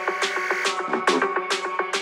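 Dubstep track: quick, busy percussive hits and sharp cymbal-like strikes about twice a second over chopped synth tones, with the deep bass cut out in this stretch.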